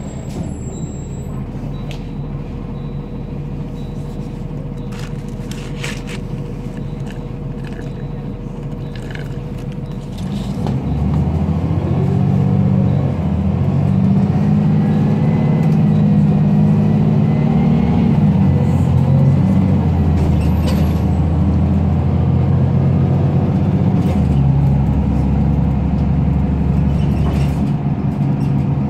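Engine and drivetrain of a 2005 ElDorado National E-Z Rider II transit bus heard from inside the cabin, running steadily, then louder from about ten seconds in as the bus accelerates, its note climbing in pitch before settling.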